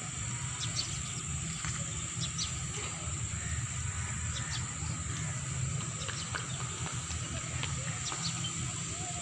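Outdoor ambience: a steady low rumble under a continuous high, thin drone, with scattered short chirps and ticks.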